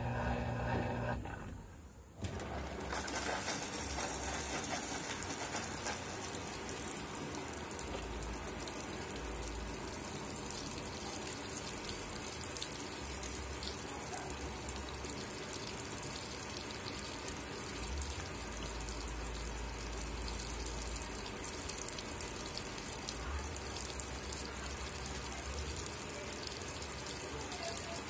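Consul 13 kg top-load washing machine: a steady machine hum cuts off about a second in. Then the water inlet starts filling the tub, with a steady rush of water spraying onto the clothes.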